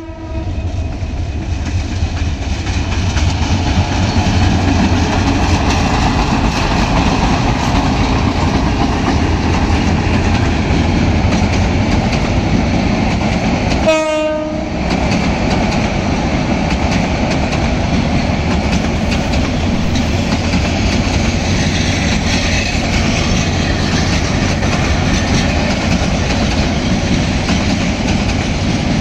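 A Bangladesh Railway EMD diesel locomotive and its string of passenger coaches running past at close range, a steady rumble of wheels on rail with clickety-clack. A brief train horn blast sounds about halfway through.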